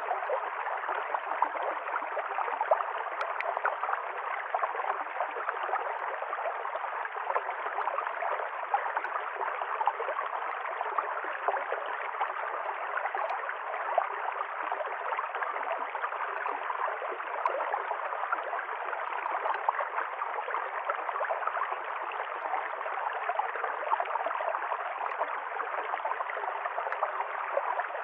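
River stream flowing, a steady rush of water with fine gurgling and splashing.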